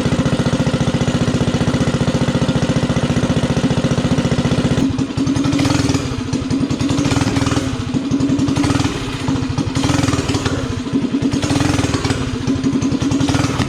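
Stage 3 single-cylinder minibike engine idling with a Nibbi carburettor while its air screw is set for highest idle. It runs at an even, fast idle, then about five seconds in it changes to an uneven, loping idle.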